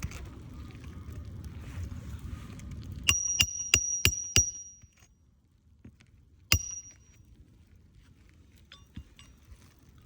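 Hammer striking metal, five quick ringing blows about three seconds in and a single one about two seconds later, typical of nailing down a roofing shingle. Wind rumbles on the microphone before the blows.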